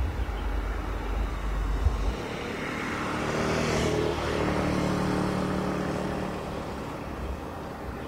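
A motor vehicle passing by, its engine and tyre noise swelling to a peak around the middle and fading away again. A low rumble runs through the first two seconds.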